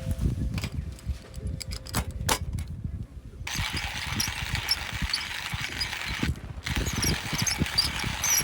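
Outdoor ambience: wind rumbling and buffeting on the microphone. About three and a half seconds in, a steady hiss with short high chirps joins in, cutting out briefly once near the middle.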